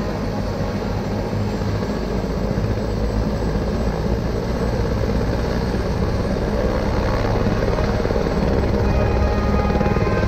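Light helicopter running on the ground with its main rotor turning: a steady, pulsing rotor and engine sound that grows gradually louder toward the end.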